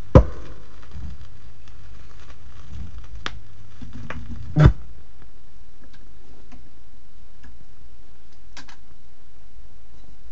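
Stylus of a turntable tracking a vinyl LP's silent groove once the song has ended: steady surface noise and low rumble, with scattered ticks and two loud pops, one right at the start and one about four and a half seconds in.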